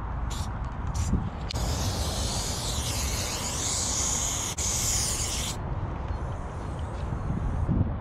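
Aerosol spray paint can: a few short spurts, then a long steady spray hiss of about four seconds, then a softer spray near the end.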